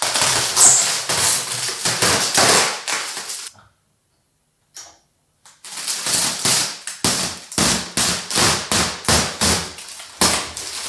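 Clear plastic packaging film crinkling and crackling as it is pulled off a new refrigerator. A dense stretch of crackling, a pause of about two seconds, then quick crackles again.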